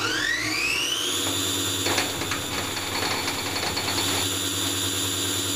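An electric motor spins up with a rising whine over the first second, then runs at a steady high-pitched whine with a low hum underneath.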